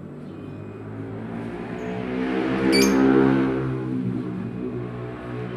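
A motor vehicle passes by: its engine sound grows louder, peaks about three seconds in, then fades away. A bird gives one short chirp near the peak.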